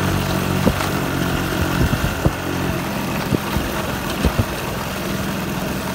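A small engine running steadily, with scattered clicks and knocks over it.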